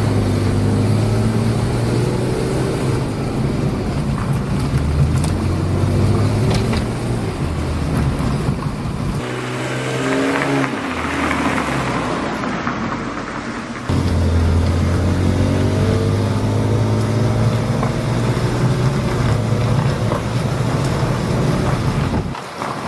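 BMW E36 328i inline-six with a Dinan cold-air intake, accelerating hard in several runs, the engine and intake note rising in pitch with each pull. The runs are split by a few abrupt cuts.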